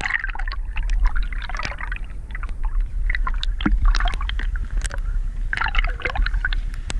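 Seawater sloshing and gurgling around a camera held half-submerged at the surface, with irregular crackles and splashes over a steady low rumble.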